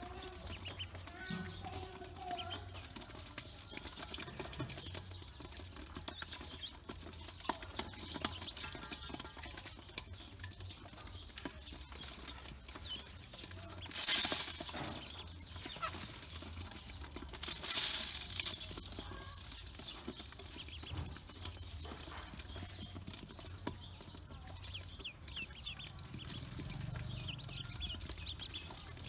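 Pekin ducklings peeping and pecking grain from an aluminium bowl, their bills clicking on the metal. About halfway through, grain is scattered into the bowl twice, a few seconds apart, each a loud shower of grain hitting the metal and the loudest sound.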